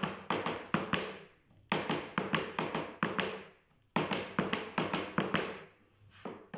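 Heeled folkloric dance shoes stamping flat-footed strikes (plantas) on a plywood dance board for Mexican zapateado. The strikes come in quick runs of five or six, with a short pause between runs, about every two seconds.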